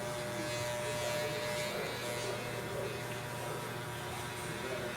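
Steady electrical buzz and hum made of several unchanging tones, running without a break.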